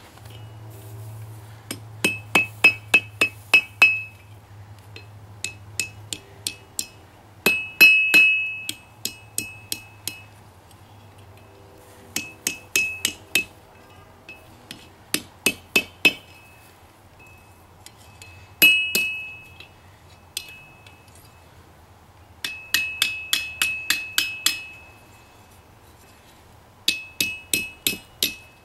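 Hammer blows on a ringing steel anvil while forging rebar: runs of several quick strikes, about four a second, each with a bright ring, broken by pauses of a second or two. A faint steady low hum runs underneath.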